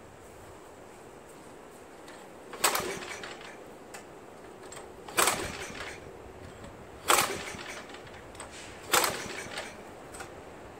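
Four sharp pulls of the recoil starter on the Craftsman 522 snowblower's Tecumseh engine, about two seconds apart, each a brief crank that dies away at once. The stalled engine does not catch.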